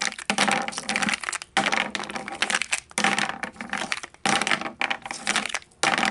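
Small plastic gift-box-shaped blind boxes rattling and clattering against each other in irregular bursts as they are shaken and shuffled between two hands, then tumbling onto a tabletop at the very end.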